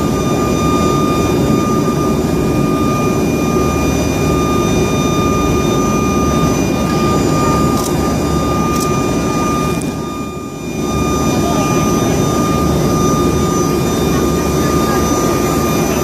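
Steady drone of a C-27J Spartan's twin Rolls-Royce AE 2100 turboprop engines at taxi power, heard from inside the cabin: a heavy low rumble with a steady high whine over it. The sound briefly drops for a moment about ten seconds in.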